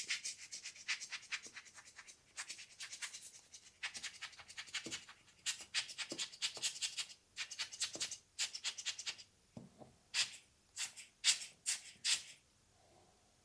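Rubber hand blower puffing air at a camera lens or sensor: runs of short, quick hisses with brief pauses between them, blowing dust particles off the glass.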